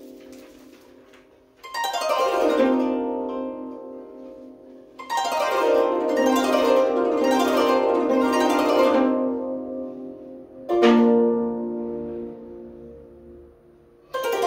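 An ensemble of koto, 13-string Japanese zithers, playing: phrases of quick downward plucked runs enter about two seconds in and again about five seconds in. Near the end a single strong plucked chord rings and fades, and a fresh phrase starts just as it dies away.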